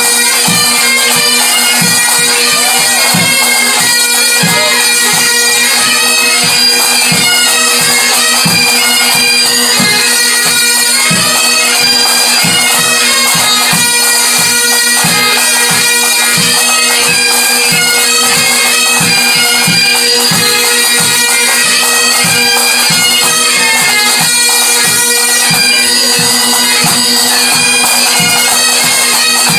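Bagpipes playing a tune over their steady drones, loud, with a bass drum beating time underneath.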